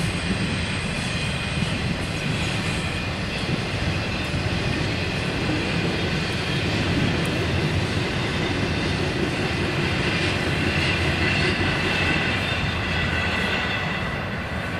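Double-stack intermodal container well cars rolling past: a steady rumble of steel wheels on the rails. It drops off near the end as the last car goes by.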